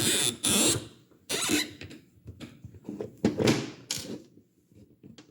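A screw being driven by hand into a tight-fitting hole in a 3D-printed plastic trigger frame, making a short grinding noise with each turn, about once a second, growing fainter near the end.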